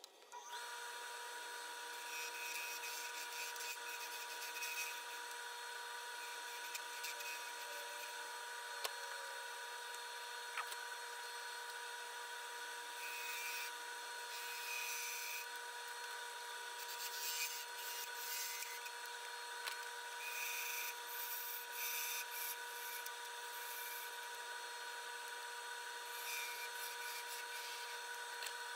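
Wood lathe switched on just after the start and running with a steady whine, while a turning gouge cuts the spinning African blackwood blank in intermittent scraping passes.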